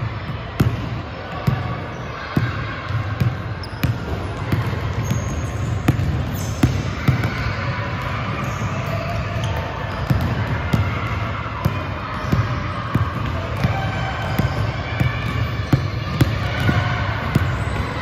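Basketball dribbled on a hardwood gym floor, including between-the-legs dribbles: a run of bounces, roughly one a second, echoing in the large hall.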